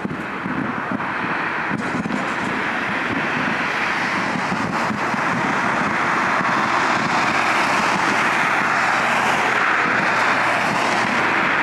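Jet aircraft engine noise, a steady rushing sound that slowly grows louder, with a higher hiss coming in past the middle. A couple of faint pops are heard early on.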